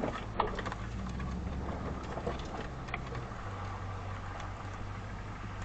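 Vehicle engine running steadily at low speed, a low hum heard from inside the cab, with tyre and road noise from a rough dirt trail. Two light clicks sound, about half a second in and near three seconds.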